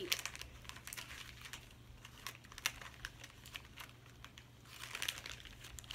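Plastic toy packaging crinkling and rustling as it is handled and opened, with small clicks and taps, coming in a few short bursts.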